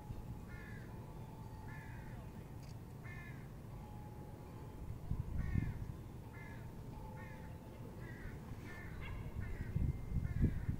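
A bird calling over and over in short, harsh calls, roughly one a second with a pause in the middle. Beneath it is a low rumble of wind on the microphone that swells about halfway through and again near the end.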